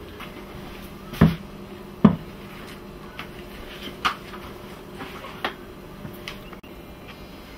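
Two loud knocks about a second apart, then a few lighter taps and clicks: handling a cast iron loaf pan and the oven after taking the pan out.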